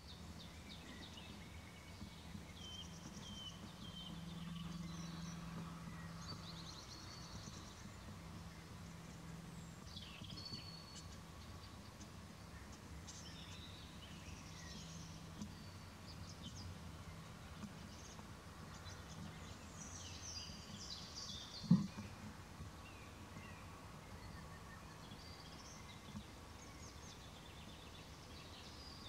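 Faint birdsong, with short chirps and trills scattered throughout, over a low steady hum. A single sharp knock comes about three-quarters of the way through.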